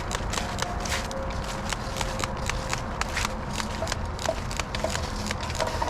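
Footsteps walking over dry ground, a quick run of crunching steps about three a second.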